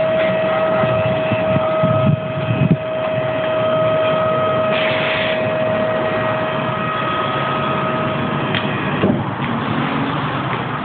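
Hydraulic tail lift on a Scania truck: its electric pump runs with a steady whine while the platform folds down and lowers. The whine stops with a clunk about eight and a half seconds in.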